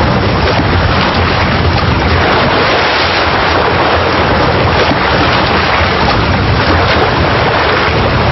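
Seawater rushing and churning as a wave surges across an ice floe: a wave pushed up by killer whales swimming together, to wash a seal off the ice.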